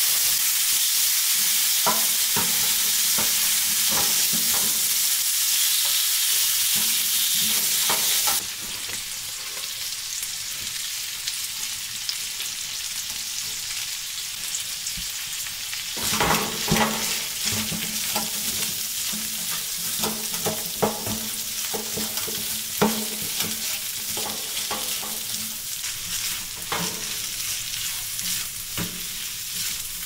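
Chunks of meat sizzling loudly in a frying pan on a wood stove; the sizzle drops suddenly about eight seconds in. From about halfway, a red spatula stirs the meat and onions, scraping and knocking against the pan over a quieter sizzle.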